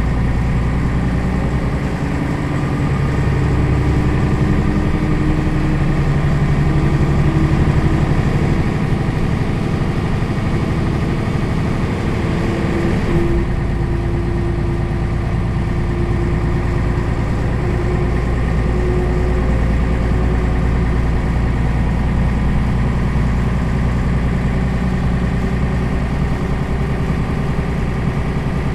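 Mercedes-Benz O 405 city bus's horizontal straight-six diesel idling steadily while the bus stands at the stop. About halfway through the deep rumble grows stronger and the engine note shifts slightly.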